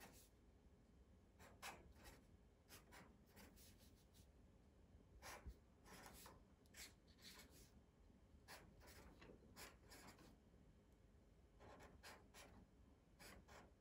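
Faint scratching of a Sharpie marker drawing short lines on paper, in many brief strokes with short pauses between them.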